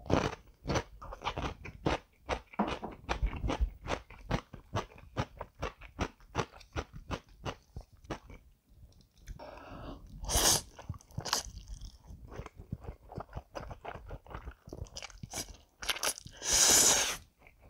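Close-miked person chewing soft cream-sauced instant noodles with wet, rapid lip-smacking clicks, and slurping noodles in twice, about ten seconds in and near the end, the last slurp the loudest.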